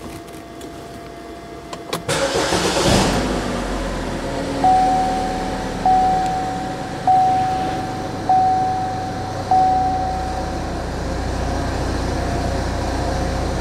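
2012 Buick Verano's four-cylinder engine cranking briefly and catching about two seconds in, then idling steadily. A dashboard warning chime dings five times, evenly spaced a little over a second apart.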